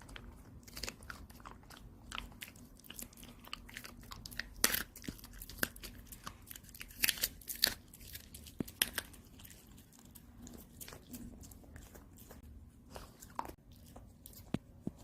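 A dog chewing and biting on a hard dog chew, with irregular sharp crunches and clicks, the loudest about five and seven seconds in.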